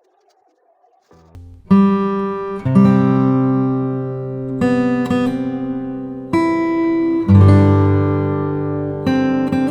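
Background music: plucked or strummed guitar chords, starting suddenly about a second in after near silence and changing every second or two.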